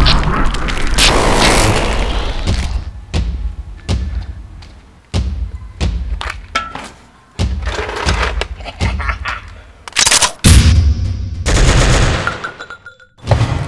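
Sound-effect track: a loud explosion, followed by a string of sharp gunshot and impact hits, about one a second, each trailing off.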